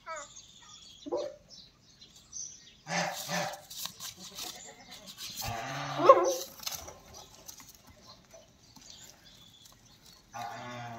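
A goat bleats once, loudly, about six seconds in, with a few shorter, quieter calls around it.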